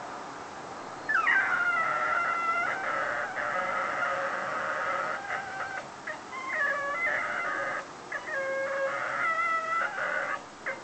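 Whippet howling and whining, left alone at home: about a second in it starts a string of long, wavering, high-pitched howls with short breaks between them.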